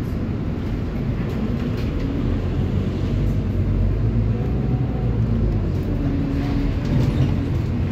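Scania city bus driving between stops, heard from inside the cabin: a steady low rumble of engine and road noise, with faint pitched drivetrain tones in the second half.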